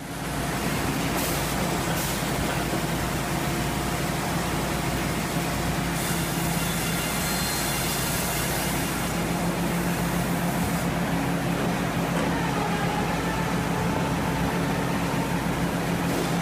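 Hurdle resaw running in a sawmill: a steady, loud machine drone with a low motor hum under a constant hiss, and a brighter hiss in the highs for a few seconds in the middle.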